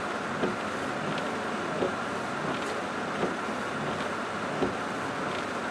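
Steady noise inside a car during a thunderstorm, with a short thump about every second and a half from the windshield wipers sweeping the rain-wet glass.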